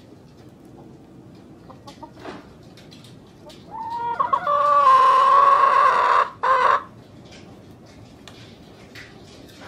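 A rooster crows once, a single drawn-out call of about three seconds starting roughly four seconds in, with a short break just before its final note. Faint scattered clucks and chirps from the flock sound before and after it.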